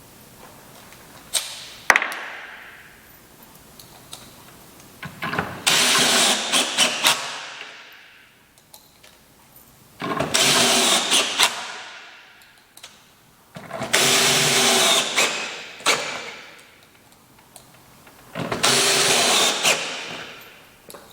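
An electric power tool switched on in four short runs about four seconds apart, each running briefly at full speed and then winding down after release. Two sharp clicks come shortly before the first run.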